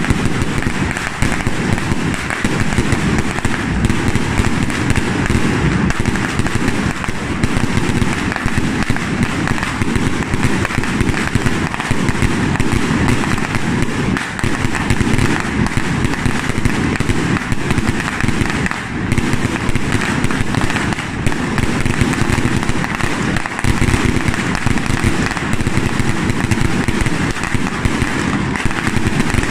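Firecrackers and ground fireworks set out in rows on the street, going off in a dense, unbroken crackle of rapid pops that never lets up.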